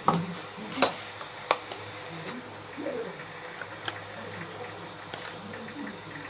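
Kitchen utensils clicking and knocking a few times as mayonnaise is added to a bowl of chopped raw vegetables, over a steady faint hum and hiss.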